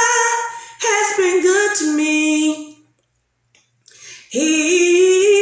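A woman singing a gospel song a cappella, holding long notes, one of them sliding down in pitch. About three seconds in she breaks off for a breath, then takes up another long held note.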